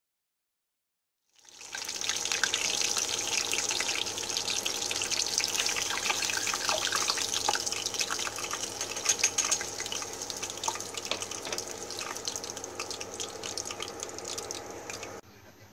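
Hot oil sizzling and crackling around a breadcrumb-coated cheese stick as it deep-fries: a dense hiss full of fine pops. It starts about a second in and cuts off sharply shortly before the end.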